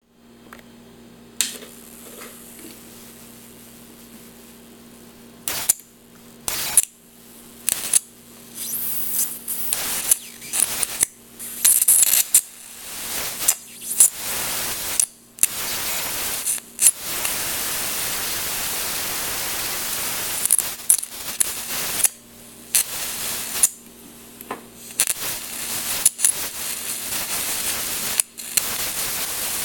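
High-voltage electric arc sparking into pancake syrup in a metal bottle cap: stop-start crackling, hissing bursts that begin about five seconds in, with one steady five-second stretch of hiss in the middle. Under it runs a low steady hum, heard plainly in the quiet first seconds.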